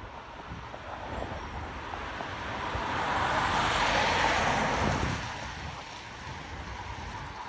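A car passing by on a road, its tyre and road noise swelling to a peak about four seconds in and then fading.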